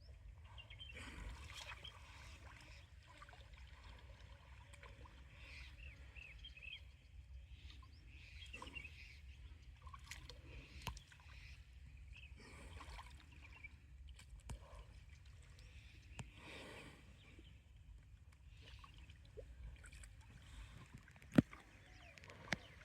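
Water sloshing and splashing around wading buffaloes over a low steady rumble, with a few sharp knocks. The loudest is a single sharp knock near the end.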